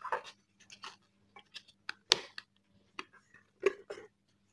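Scattered rustles, scrapes and light clicks of a motorcycle helmet's fabric-covered side padding and its plastic clip being worked into the shell by hand, the loudest about two seconds in.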